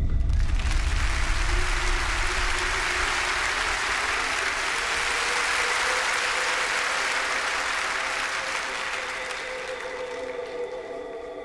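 Theatre audience applauding: the clapping breaks out suddenly and slowly dies away over quiet sustained music.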